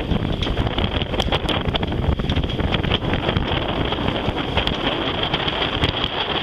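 Wind buffeting the microphone aboard a sailboat under way, a loud, uneven rumble with scattered crackles, over the rush of choppy water.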